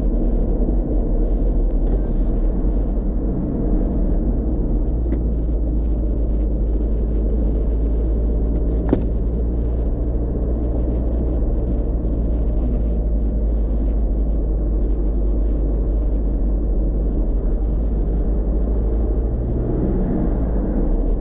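Chip-tuned Škoda Octavia 1 1.9 TDI four-cylinder turbodiesel running steadily under way, heard from inside the cabin with a heavy low road rumble. A brief sharp click comes about nine seconds in.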